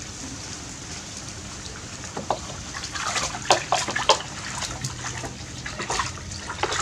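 Water splashing and sloshing in a plastic washbasin as hands and a bath brush swish through it, a run of short splashes loudest about three to four seconds in.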